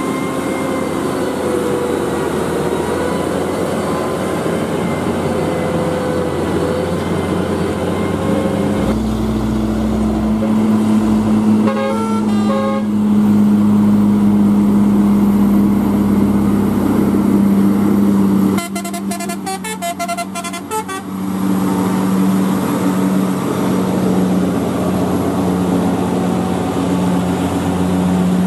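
Heavy diesel trucks running under load, a steady engine drone. A horn sounds a short run of stepped notes about twelve seconds in, and again for about two seconds near twenty seconds.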